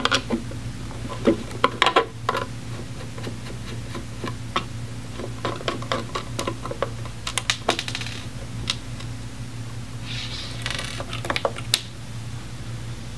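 Hands handling a gas monitor's sheet-metal enclosure and lifting its sensor out: scattered small clicks and knocks of plastic and metal, with two short rustling scrapes, one midway and one near the end, over a steady low hum.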